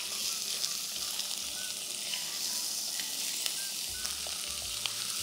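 Squid searing in a very hot oiled pan: a steady high sizzle with scattered small crackles and pops.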